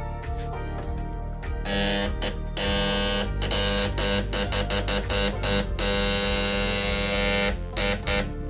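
Loud electrical buzz of a homemade inverter driving a microwave-oven transformer. It cuts in about two seconds in and is switched on and off in a run of short bursts, then held for about a second and a half, with background music underneath.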